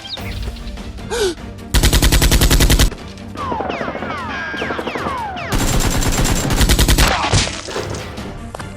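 Rapid automatic gunfire in two bursts, each a second or so long, at about a dozen shots a second. Falling whistling tones come between the bursts.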